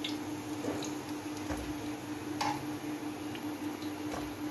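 Metal tongs clicking and tapping as fried chicken pakoras are set down on a ceramic plate: a few sparse light ticks, the clearest about two and a half seconds in, over a steady low hum.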